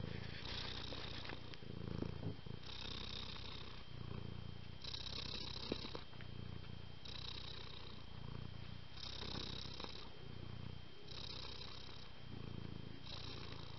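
Tabby cat purring steadily, rising and falling in a slow regular rhythm of about one breath every two seconds.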